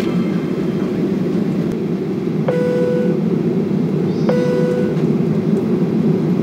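Steady low rumble and hiss inside a Boeing 737-800 passenger cabin with the airliner on the ground. Two short, even tones sound about two seconds apart, partway through.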